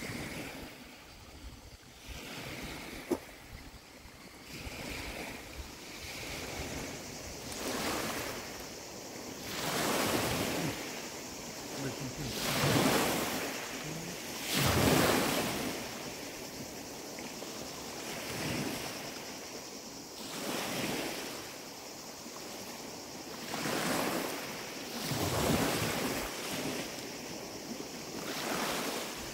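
Sea waves washing onto a pebble beach, the rush of water swelling and fading every two to three seconds, with some wind on the microphone.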